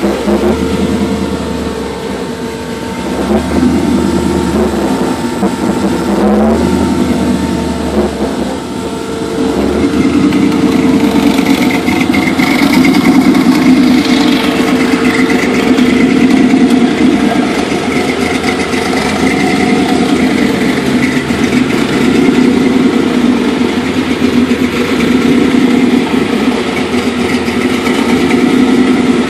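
1965 Chevy pickup truck's engine running steadily, with only small swells in loudness and no hard revs.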